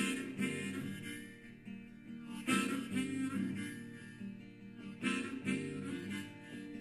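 Recorded music with harmonica and guitar, played back through a JBL portable Bluetooth speaker.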